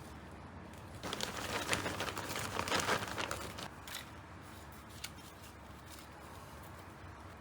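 Rustling, crinkling handling noise for about two and a half seconds from about a second in, followed by a couple of light clicks, as plant and potting materials are handled during repotting.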